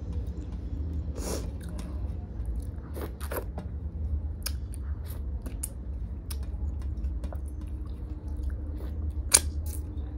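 Close-miked eating sounds of soft dal and rice: wet chewing, lip smacks and licking, with scattered clicks as fingers wipe a steel plate, over a low steady hum. One sharp click stands out about nine seconds in.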